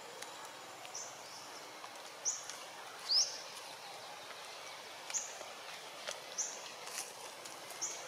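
A bird chirping: short, high calls about once a second, the loudest a quick upward sweep about three seconds in, over a steady outdoor hiss with a few faint clicks.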